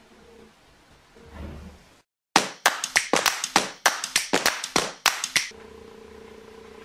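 A fast run of sharp handclaps, well over a dozen in about three seconds, used as an edited-in transition sound; it starts suddenly after a moment of dead silence and stops cleanly, leaving a steady low hum.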